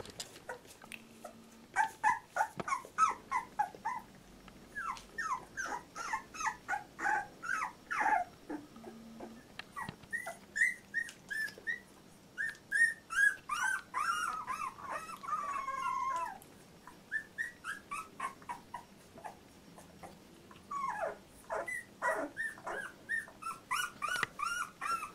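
Two-week-old Labrador retriever puppies whimpering: runs of short high squeaks, about four a second, with a few longer wavering whines.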